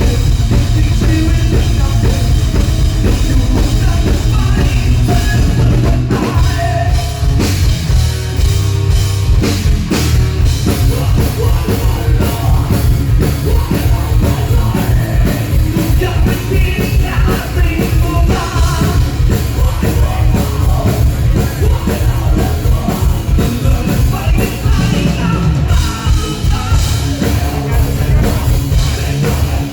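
Rock band playing loudly, with drum kit, heavy bass and singing.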